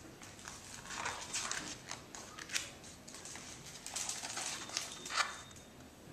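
Paper rustling as a page of a large hardcover picture book is turned and handled, in two bursts of rustle, each ending with a sharp tap of the page.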